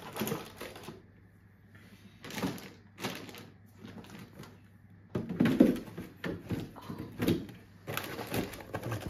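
A plastic freezer drawer and frozen food packets being handled: rustling bags, knocks and the drawer sliding, with a run of louder clatters from about five seconds in.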